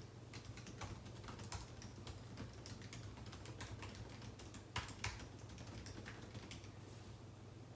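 Typing on a computer keyboard: a quick, irregular run of key clicks, with two louder keystrokes about five seconds in.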